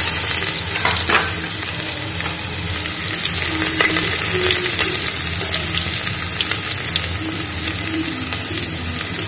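Chopped onions frying in hot oil with cumin and coriander seeds in an aluminium pot: a steady sizzling hiss with a few faint clicks.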